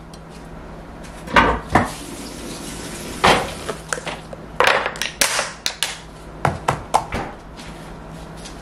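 Kitchenware being handled on a countertop: a string of sharp clacks and knocks from a knife and plate, a glass food storage container with a snap-lock lid, and a plastic tub set down.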